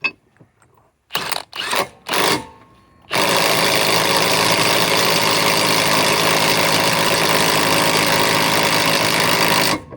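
Bosch GDS 18V-330C cordless mid-torque impact wrench tightening a nut: three short bursts of hammering, then a long steady run of impacting for nearly seven seconds that stops just before the end.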